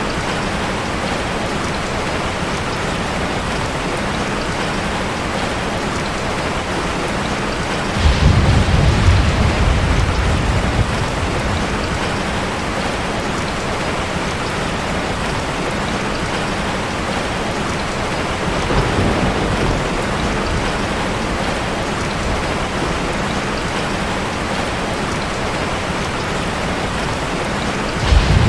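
Heavy rain falling steadily, with thunder. A sudden loud clap rolls on for about three seconds, starting about eight seconds in. A fainter rumble comes about two-thirds of the way through, and another clap breaks just at the end.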